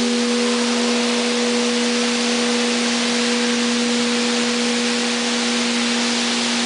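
800 kg Orthodox blagovest bell ringing on after a single strike, with no new strike: two low tones, its hum and a tone about an octave above it, hold steady. A middle tone dies away about half a second in. A steady hiss runs underneath.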